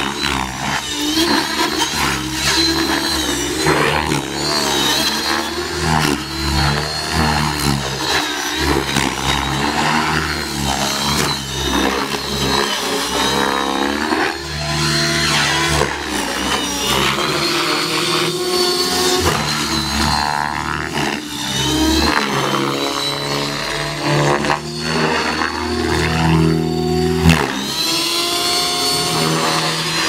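Radio-controlled helicopter in aerobatic flight, its motor and rotor whine rising and falling in pitch.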